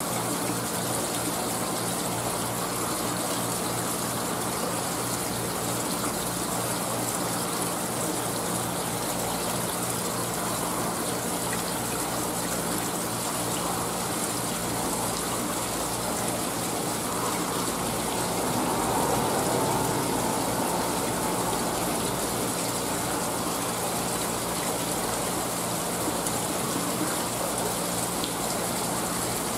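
Steady rush of water circulating through a fish tank's plumbing, with a low pump hum underneath; it swells slightly about two-thirds of the way through.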